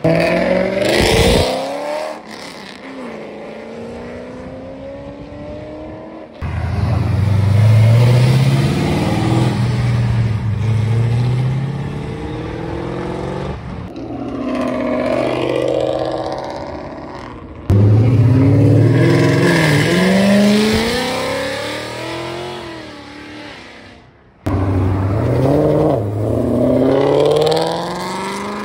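A run of late-model Ford Mustangs pulling away hard one after another, each engine revving up with its pitch climbing steeply, dropping back at gear changes and climbing again. Abrupt cuts separate the cars, each loud as it passes.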